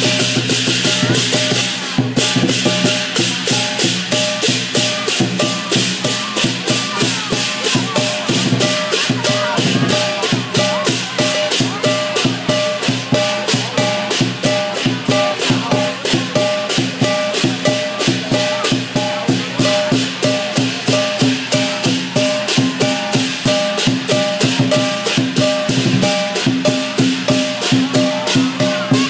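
Lion dance percussion band playing: drum, gong and cymbals keep up a fast, driving beat, with rapid strikes about four times a second.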